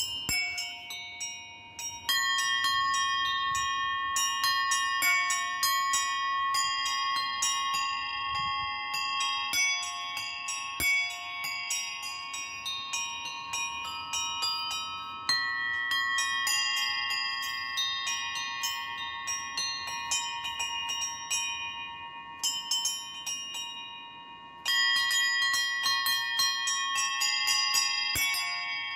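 A set of small tuned bronze bells rung by hand in quick succession, a four-bell peal on f''', b-flat''', c'''' and d-flat''''. The many rapid strikes overlap into a continuous ringing. The ringing thins out about three-quarters of the way through, then starts again strongly.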